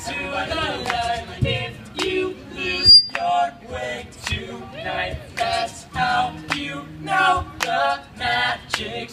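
Male a cappella group singing in harmony through microphones and PA speakers, with a sustained low bass part under the melody and sharp percussive clicks keeping a steady beat. A brief high beep sounds about three seconds in.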